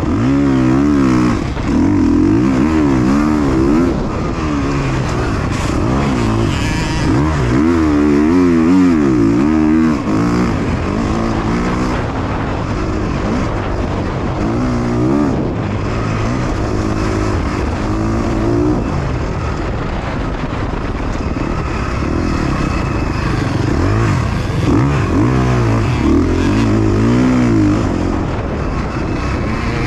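KTM 350 XC-F single-cylinder four-stroke dirt-bike engine, heard from the rider's helmet, revving up and backing off again and again, its pitch rising and falling every second or two.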